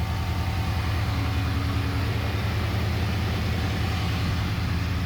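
1990 Chevrolet C1500 pickup's engine idling steadily, running on a newly fitted battery.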